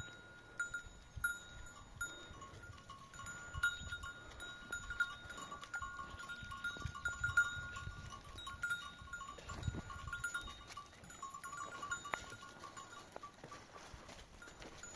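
Metal neck bells on a flock of sheep and goats clinking and ringing again and again, unevenly, as the animals move along.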